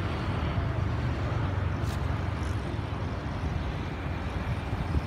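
Steady low rumble with an even hiss: outdoor background noise of an open riverside.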